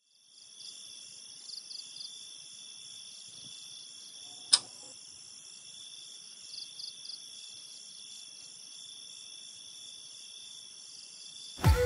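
Crickets chirping steadily in a high-pitched chorus, with a few short pulsed trills. A single sharp click sounds about four and a half seconds in, and music with a deep bass hit comes in just before the end.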